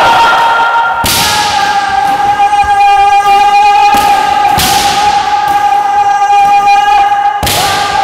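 Kendoka shouting long, drawn-out kiai, several voices held and overlapping for seconds at a time, broken four times by sharp impacts of bamboo shinai striking armour as attackers stamp in on the wooden floor.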